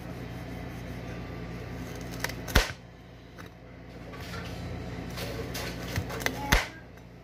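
Kitchen knife chopping carrots on a cutting board: two sharp knocks about four seconds apart, each with a lighter tap or two just before it, over a steady low hum.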